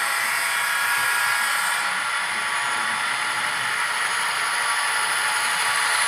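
Pair of ScaleTrains SD45 model diesel locomotives running with their train on sectional track, a steady whirring hiss of motors and wheels on the rails that grows slightly louder as they come closer.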